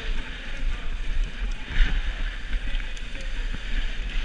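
Wind rushing over a helmet-mounted action camera and BMX tyres rolling on a packed dirt track while the bike rides fast, a steady hiss over a low rumble.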